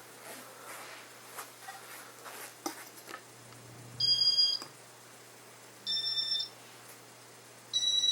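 Three electronic beeps about two seconds apart, each a short chord of two high, clean tones lasting about half a second, after a few light clicks.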